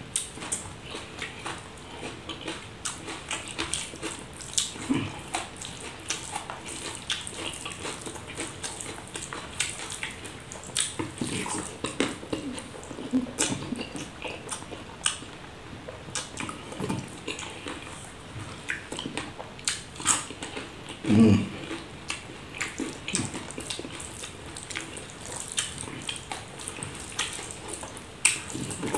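Wet squelching of curd rice being mixed and scooped by hand on a banana leaf, with lip-smacking and chewing as it is eaten: an irregular run of short wet clicks. One louder, deeper mouth sound stands out about two-thirds of the way through.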